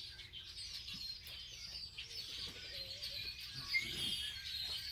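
A dense chorus of many wild birds chirping and calling at once in the trees, with overlapping short, high-pitched notes.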